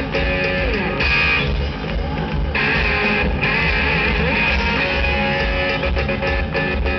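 Rock band playing live through a large concert PA, heard from within the audience: electric guitars, bass and a steady drum beat.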